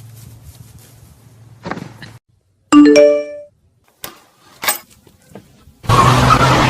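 A single loud bell-like ding with several ringing tones that fade within half a second, followed by a few sharp clicks; about a second before the end, hip-hop music starts loudly.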